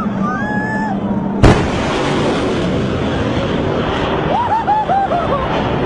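Fighter jet making a low, fast pass: its noise arrives all at once with a sharp crack about a second and a half in, then carries on as a steady jet rush. People cry out near the end.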